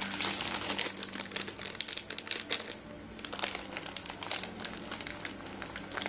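Irregular crinkling and crackling as grated cheese is picked up and sprinkled by hand over a sauced pizza base.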